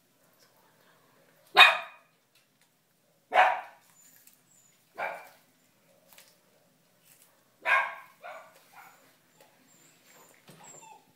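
A dog barking: four loud single barks spaced a second and a half to two seconds apart, the last followed quickly by two quieter ones.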